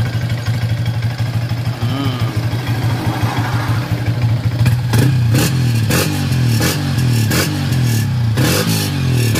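Yamaha Sniper 155's single-cylinder engine running through a UMA back-pressure exhaust, idling steadily at first, then from about five seconds in revved in quick, repeated throttle blips. The exhaust note is smooth ("suave").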